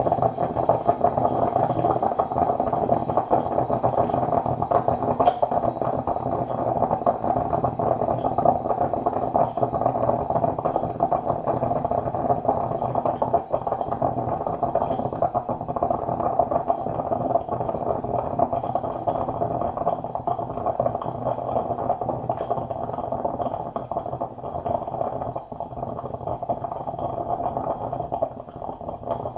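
Coffee maker brewing: a steady, dense bubbling and gurgling that eases slightly near the end.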